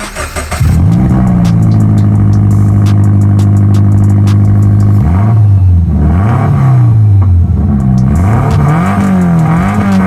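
Toyota GT86's 2.0-litre flat-four boxer engine running straight-piped with no exhaust silencing, recorded on a phone. It comes in loud about half a second in and holds a steady idle, then from about five seconds in it is blipped up and down in repeated short revs.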